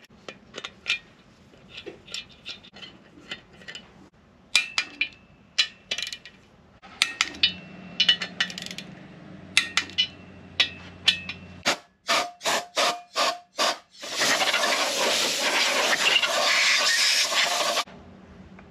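Metal hand tools and parts clinking and clicking on a Honda K24 engine block, with a run of evenly spaced clicks at about four a second near the middle. This is followed by a loud steady hiss lasting almost four seconds that cuts off suddenly.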